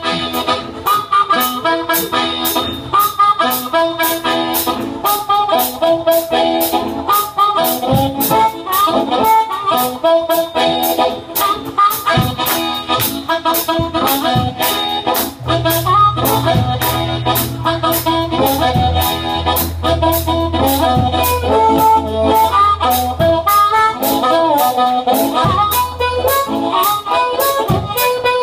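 Amplified blues harmonica, cupped against a handheld microphone, playing a fast instrumental lead of quick runs. A live band backs it with drums keeping a steady beat, bass and electric guitar.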